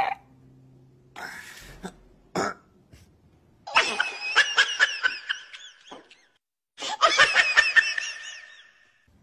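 A man laughing in strained, rapid bursts: a short breath and a sharp catch in the first couple of seconds, then two long runs of quick 'ha' pulses, the first about four seconds in and the second about seven seconds in.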